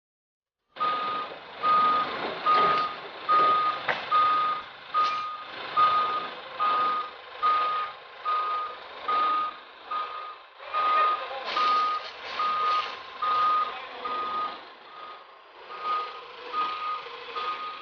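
Forklift reversing alarm beeping: one steady high tone repeated a little faster than once a second, over the rough noise of the working machine.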